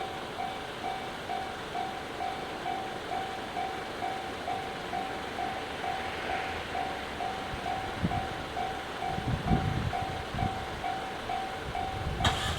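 Electronic level-crossing alarm in the JR standard tone, ringing a rapid, even ding-ding-ding without a break. Low rumbling thumps come in during the second half.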